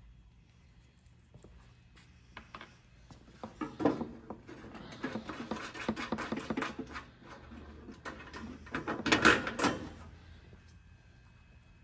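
Hands working at the nuts on the metal bottom panel of an espresso machine. There are scattered clicks about three seconds in, then a stretch of rattling and scraping with a sharp knock, and a louder clatter about nine seconds in.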